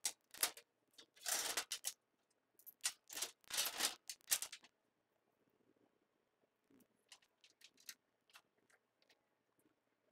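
Clatter and rustling of hand tools and metal parts being handled while an engine mount is fitted to a motorcycle frame. There is a quick run of short, sharp bursts in the first few seconds, then only faint scattered clicks.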